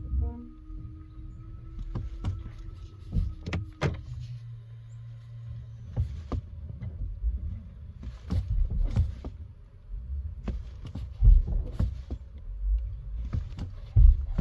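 Irregular thumps and knocks from a Tesla, some sharp and some dull, over a low rumble. A steady hum stops about four seconds in.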